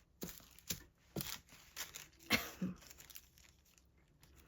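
Small irregular taps and rustles of plastic from hands working on a diamond painting, about two or three light clicks a second.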